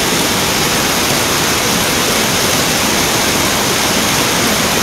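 Loud, steady rushing of fast-flowing floodwater surging down a street in heavy rain.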